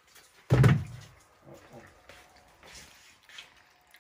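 A single heavy thud about half a second in, dying away quickly, followed by faint scattered knocks and rustling.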